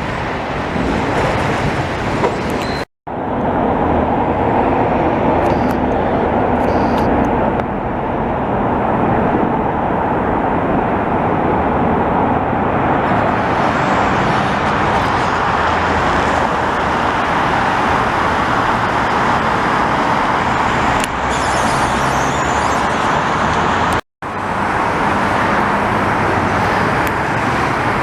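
Heavy highway traffic noise, a steady dense rush of passing vehicles, which cuts out for an instant twice.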